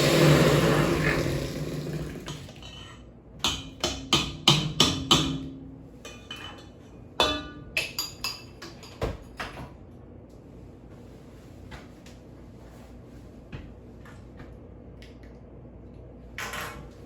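Electric hand mixer creaming butter and sugar, its motor winding down and stopping about two seconds in. Then two quick runs of sharp knocks, the beaters being tapped clean against the mixing bowl.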